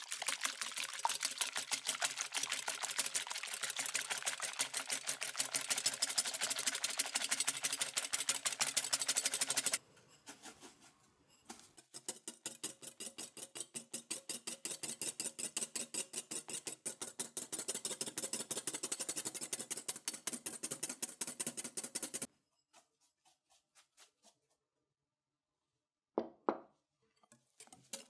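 Wire balloon whisk beating egg whites in a glass bowl: fast, even strokes of the wires against the glass as the whites are whipped to a meringue. The whisking pauses briefly about ten seconds in and stops about two-thirds of the way through. After a few faint ticks and a short knock, it starts again near the end.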